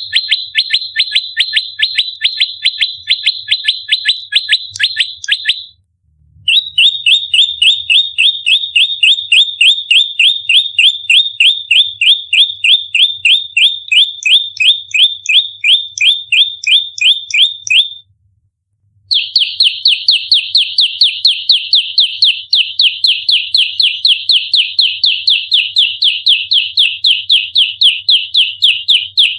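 Prenjak lumut (a prinia) giving its fast, tightly packed 'fighting' call: long trains of sharp, evenly repeated high notes, about six or seven a second, in three bouts with brief pauses about six and eighteen seconds in.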